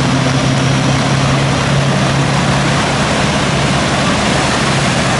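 Loud, steady rushing noise of the rainstorm and floodwater, with the low drone of semi trucks' diesel engines as they wade through the flooded highway; the drone fades about three seconds in.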